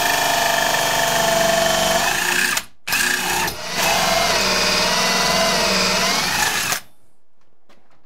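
Cordless drill driving a hole saw and pilot bit into a steel door. It runs in two long stretches with a brief stop a little under three seconds in, and its pitch wavers during the second run. It stops about seven seconds in.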